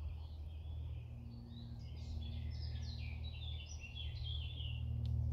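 A songbird singing a run of short, varied notes over a steady low rumble of outdoor background noise.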